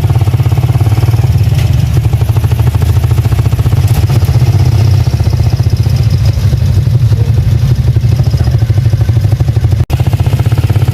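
Small vehicle engine running steadily and loudly close by, a low rumble with a fast even pulse, broken by a brief cut about ten seconds in.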